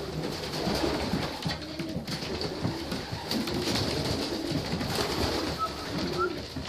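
Racing pigeons cooing, several overlapping low, repeated coos that rise and fall in pitch.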